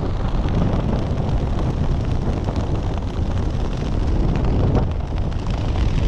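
Heavy wind buffeting a skydiver's camera microphone, a steady rumbling rush with no break.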